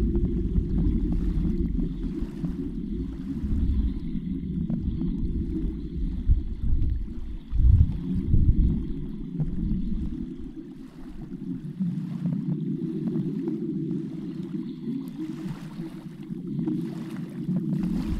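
Muffled underwater water noise: a dull, deep rushing with a low rumble that fades about halfway through and comes back near the end. There is a brief low surge about eight seconds in, and faint scattered ticks.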